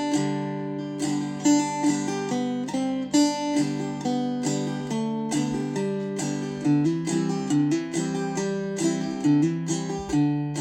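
Gourd banjo in open G tuning (gDGBD) played clawhammer style: a slow, simple melody picked out with the bum-ditty stroke, sharp plucked notes over a ringing drone.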